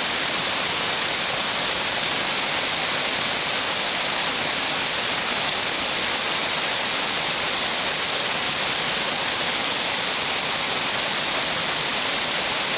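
Steady, even rush of a small woodland waterfall, about a 20-foot drop, and the creek cascading over rocks below it, running high after days of rain.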